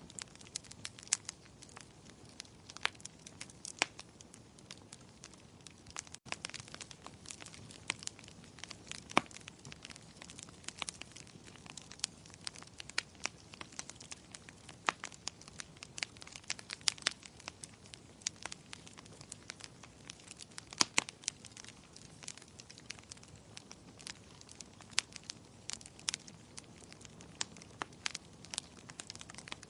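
Wood fire crackling in a fireplace: irregular sharp pops and snaps, several a second and some louder than others, over a soft steady hiss.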